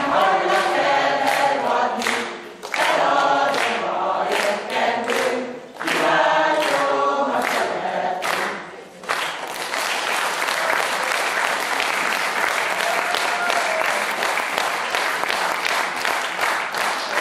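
Mixed choir of men's and women's voices singing a Hungarian folk song unaccompanied, in short phrases, ending about nine seconds in. Audience applause follows and runs on steadily.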